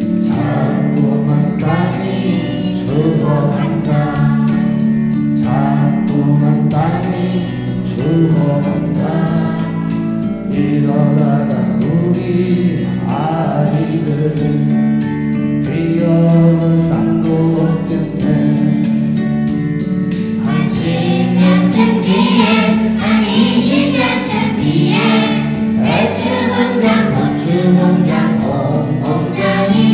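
A children's choir singing a song together in Korean over instrumental accompaniment with a steady beat.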